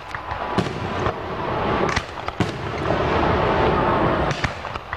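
Aerial firework shells bursting, several sharp separate bangs spread through these seconds.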